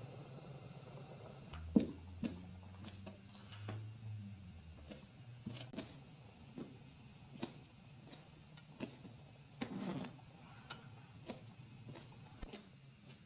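Metal ladle tapping and clinking against the side of a pot as a soup is stirred, light taps repeating roughly every second, with a low hum for a few seconds near the start.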